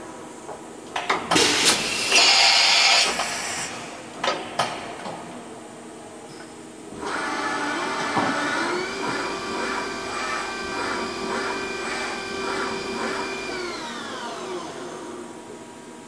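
Wagner WMC 1100 CNC vertical machining center running: loud clattering and a few sharp clicks in the first few seconds as the spindle head travels down, then a motor whine that rises, holds steady for about five seconds and glides back down.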